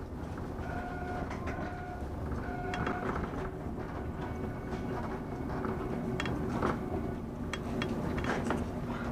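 Mont Blanc Express electric train running on metre-gauge track, heard from inside the carriage: a steady rumble of wheels on rails with scattered clicks, three short high whines in the first few seconds, and a steady hum in the second half.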